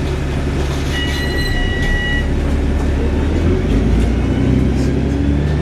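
Wright Gemini 2 VDL DB300 double-decker bus running under way, its engine and drivetrain giving a loud low drone with whirring. A brief high whistle-like tone sounds about a second in, and the engine note rises around three and a half seconds in.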